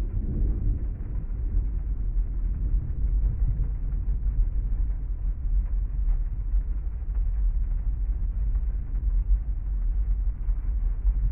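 Rain ambience heard from inside a parked car's cabin: a steady, muffled low rumble with no separate drops or other events.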